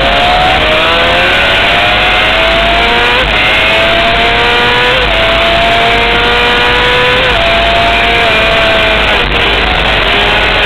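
Honda CBR600 inline-four engine at high revs under hard acceleration, heard from on board: the pitch climbs steadily then drops sharply at each upshift, three times, over steady wind rush.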